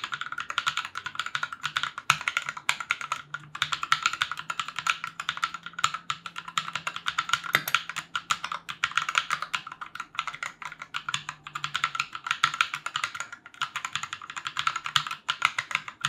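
Fast, continuous typing on a mechanical keyboard with Invyr Holy Panda tactile switches, hand-lubed with Tribosys 3203: a dense, unbroken run of keystrokes.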